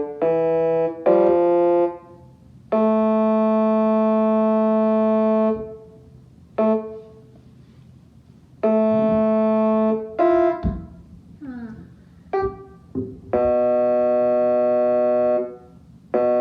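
Keyboard playing the Detroit Red Wings goal horn: a run of short chords, then several long chords held at an even level, each cut off abruptly.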